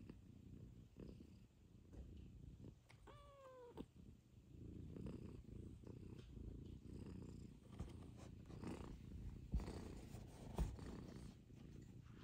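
Russian Blue cat purring steadily and softly, with one short high mew about three seconds in and two sharp taps near the end.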